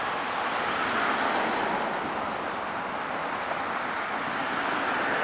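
Steady road traffic noise from cars and trucks moving on a highway interchange, a continuous hiss of tyres and engines with no single vehicle standing out, growing slightly louder near the end.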